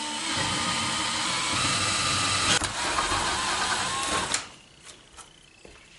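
Handheld power drill motor running steadily for about four seconds, then stopping abruptly.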